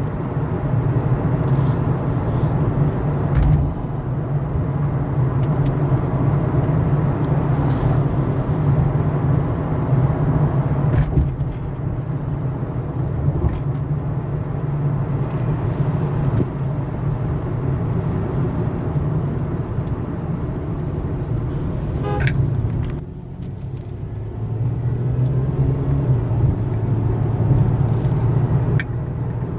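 Car driving along a city street: steady engine hum and tyre-road noise, easing off briefly about two-thirds of the way through and then building again.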